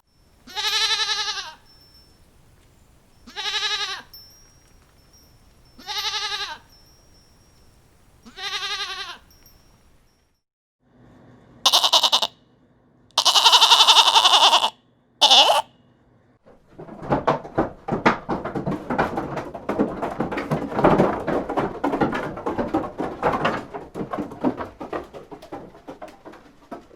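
Goats bleating: four evenly spaced bleats, each rising and falling in pitch. These are followed by a group of higher, brighter bleats, one of them longer. The second half is a long stretch of dense crackling, pattering noise.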